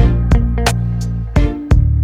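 Background music with guitar, a steady bass line and a sharp beat.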